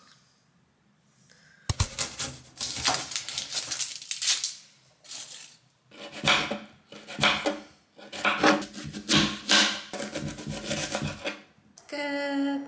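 Kitchen knife cutting potato and onion on a plastic cutting board: runs of quick chops and slices knocking on the board, starting about two seconds in. A voice sounds briefly near the end.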